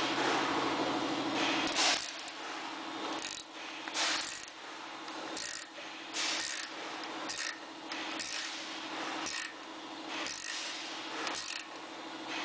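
Ratchet wrench clicking in short bursts about once a second as it is swung back and forth, turning the drive nut of a hand-operated Plusnut setting tool to pull up and set a 1/4-20 racetrack Plusnut. A steady low hum runs underneath.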